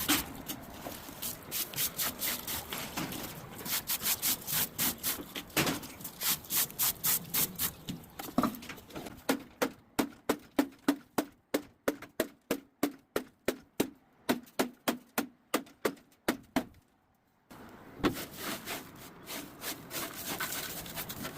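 Abrasive rubbing back and forth on sandstone to polish it, in a steady run of scraping strokes about three a second, which stop briefly near the end and then start again.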